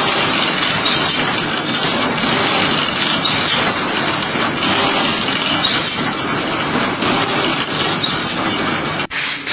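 A machine running with a dense, continuous mechanical clatter, cut off abruptly near the end.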